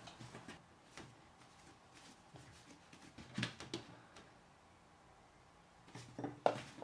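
Faint, scattered soft taps and rustles of hands handling pizza dough on a worktop and in a kitchen scale's bowl, with a couple of louder soft knocks about three and a half seconds in and again near the end.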